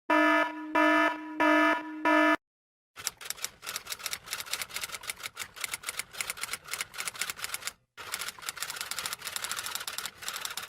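Four short electronic beeps, followed after a brief pause by a long run of rapid, uneven clicking with one short break.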